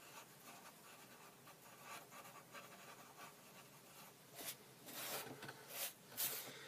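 HB graphite pencil lightly scratching on paper with soft, circular shading strokes. About four seconds in come several louder, brief rustling swishes as the sheet of paper is shifted.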